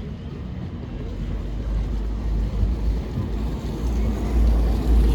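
Tram running, a low rumble that grows steadily louder, with wind noise on the microphone.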